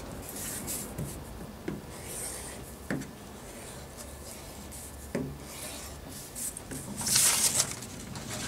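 A paper template being cut with a rotary cutter on a cutting mat and pulled free by hand: scratchy rasping and rustling of paper, with a few light knocks. The loudest rustle comes near the end.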